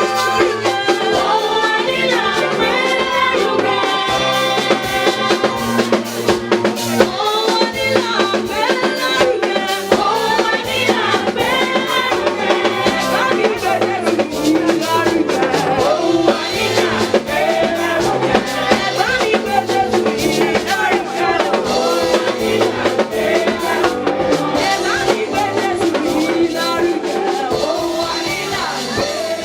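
Church choir singing a gospel song, accompanied by a drum kit with snare and bass drum keeping a steady beat.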